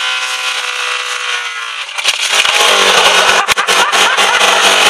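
Car engine held at very high revs, screaming steadily while smoke pours from it; about two seconds in it turns louder and harsher, with sharp knocks and bangs, as the over-revved engine blows up.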